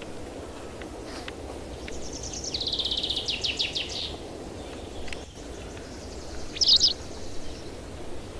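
A small songbird sings a fast, high trill of rapid notes that falls slightly in pitch. A short, loud, sharp call comes near the end. A steady low rushing noise sits underneath.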